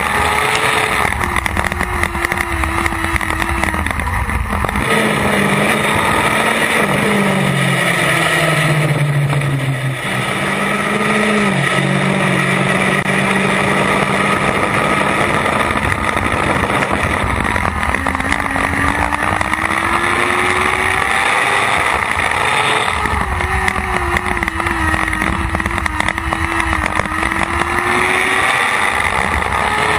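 Lightning Sprint race car's engine heard from inside the car at racing speed, its note rising and falling as it revs and backs off through the laps, with a lower note for several seconds about a quarter of the way in. Strong wind rush on the microphone.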